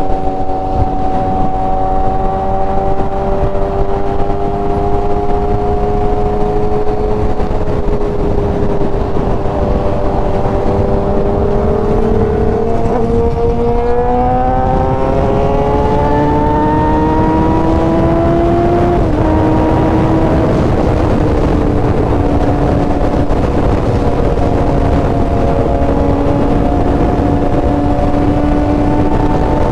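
Sport-bike engine pulling at highway speed under heavy wind rush on the helmet microphone. The engine note climbs for several seconds about halfway through, drops suddenly as with a gear change, then holds steady.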